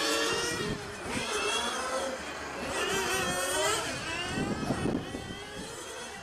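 Several 1/8-scale nitro GT race cars' small two-stroke glow engines running on track. Their pitch repeatedly rises and falls as they rev up and back off, with more than one engine heard at once.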